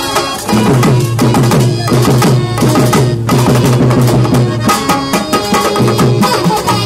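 Folk stage-drama music led by fast hand drumming on a barrel-shaped drum, with dense rapid strokes for about four seconds. Held melodic tones come to the fore near the end.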